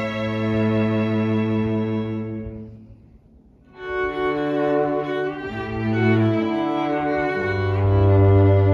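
A string trio of two violins and a cello playing in long held notes. About three seconds in, the sound dies away into a brief pause before the playing resumes, with a strong low cello note near the end.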